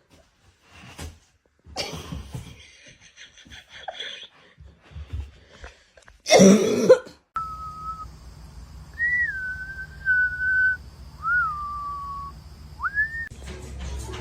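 One loud cough-like burst about six seconds in, then whistling: a few held whistled notes, each swooping up and then settling lower.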